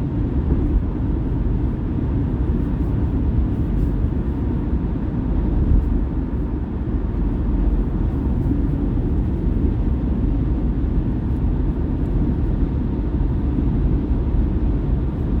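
Steady low rumble of a car driving on the highway: road and engine noise heard from inside the moving car.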